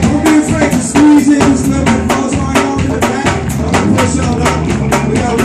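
Live band playing loud music: a drum kit keeps a steady beat under electric guitar.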